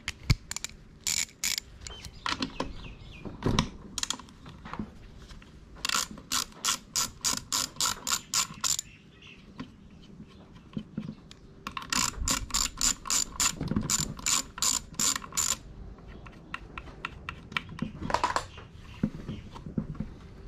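Ratchet driver clicking as it is wound back and forth to undo a fastener: two runs of quick, even clicks, about four a second, with single knocks and taps of tools and metal parts in between.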